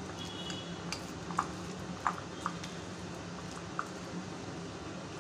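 A metal spoon mashing and stirring a soft potato-and-paneer filling in a glass bowl, giving a handful of light, scattered clinks and taps against the glass.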